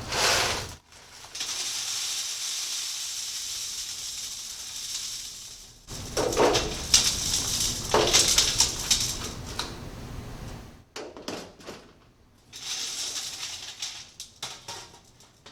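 Burned-off asphalt aggregate poured into a nest of metal sieves. A steady hiss of grains runs down, then stones rattle and clatter against the metal sieves and pan, with a second short pour near the end.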